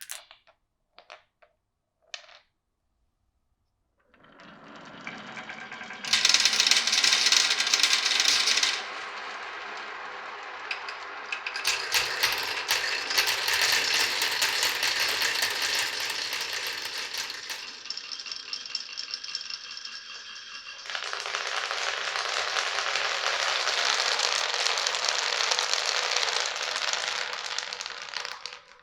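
Marbles rolling and clattering down a marble run: a few clicks first, then a long run of dense rattling that is loudest about six seconds in and again through the last third.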